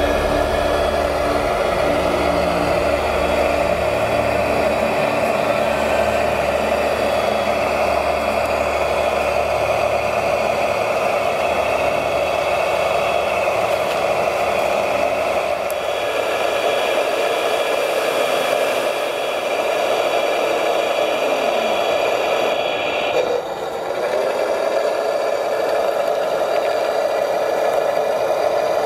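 A radio-controlled airport fire truck's water pump and motors running steadily while its roof monitor sprays a continuous jet of water onto a tree, with a brief dip in level about three-quarters of the way through.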